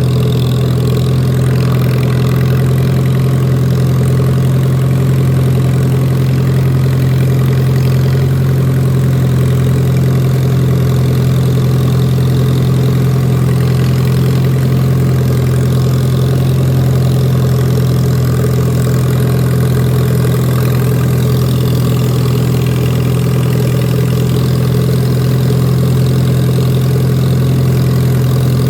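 Lawn mower engine running steadily at constant speed, loud, with a strong low steady tone and no change in pitch.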